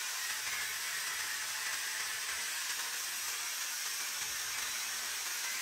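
Angle grinder with a thin cut-off disc cutting into a steel pipe: a steady, even hissing grind.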